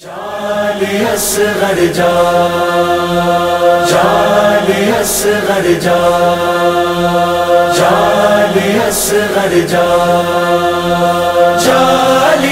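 Voices chanting a slow noha (Shia lament) in long held notes, the pitch shifting every second or two, with a short hiss about every four seconds.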